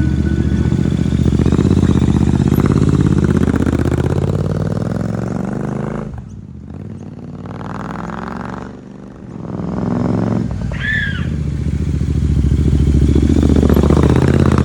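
Royal Enfield Super Meteor 650 parallel-twin running through a loud custom aftermarket exhaust with a deep, bassy thump. The engine note swells and sags, dropping off twice in the middle before building back up to full loudness near the end.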